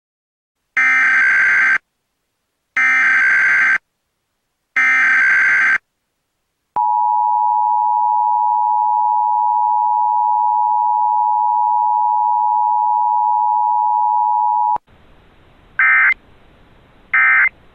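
Emergency Alert System tones: three one-second bursts of the SAME data header's warbling digital screech, a second apart, then the steady two-tone attention signal (853 and 960 Hz) held for about eight seconds. It cuts off suddenly into a faint hiss with two short data chirps near the end.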